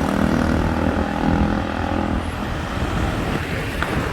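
Busy road traffic. A heavy vehicle's engine runs close by for the first two seconds or so and fades, leaving a steady rumble of passing traffic.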